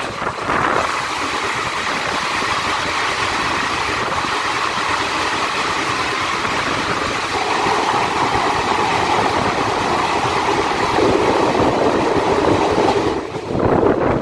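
Passenger train running through a tunnel, heard from an open coach door: a steady, dense rumble and rattle of wheels on rail, closed in by the tunnel walls. It sets in sharply about a second in as the train enters and falls away near the end as it comes out.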